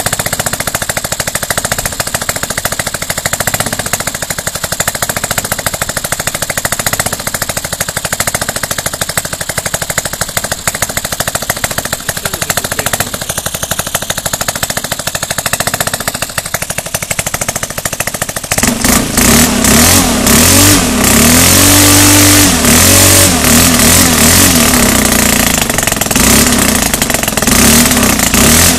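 Stihl 4-MIX single-cylinder four-stroke engine idling with a fast, even beat. About two-thirds of the way in it is opened up, running much louder with the revs rising and falling.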